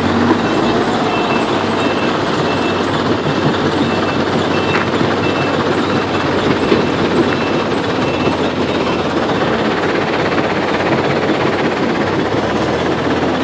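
Heavy construction machinery running steadily under load, with a reversing alarm beeping about one and a half times a second that stops about two-thirds of the way through.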